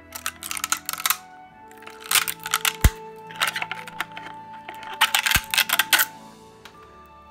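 Support material being snapped and torn away from a 3D-printed plastic part with needle-nose pliers: four bursts of rapid crackling and snapping, with two dull thumps among them. Quiet background music plays underneath.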